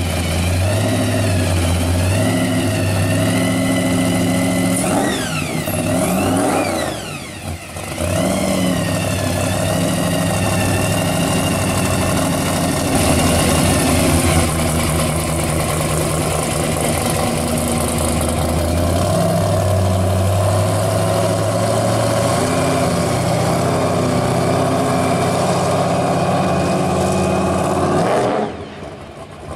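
Supercharged V8 of a pro street Chevrolet Camaro running loud, revved up and down a few times in the first several seconds, then running steadily as the car pulls away. It fades out near the end.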